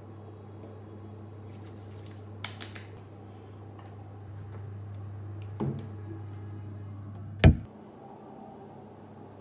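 Indoor room tone with a steady low hum, a few small clicks about two and a half seconds in, a knock just past the middle, and one sharp loud thump about seven and a half seconds in.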